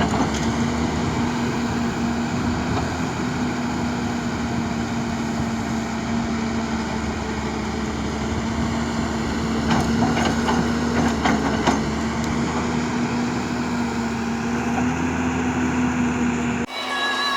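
Hitachi excavator's diesel engine running steadily, with a few sharp knocks about ten seconds in.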